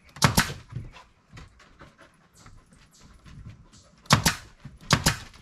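Pneumatic nail gun firing into old wooden porch floorboards: sharp cracks in close pairs, once near the start and twice more about four and five seconds in.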